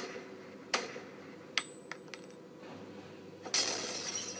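A few sharp clicks and a light metallic clink over the first two seconds, then a loud rustling noise over the last second.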